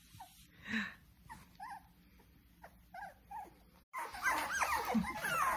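Young goldendoodle puppies whimpering: a few faint short squeaks at first, then about four seconds in several puppies whining and yipping at once, louder and overlapping.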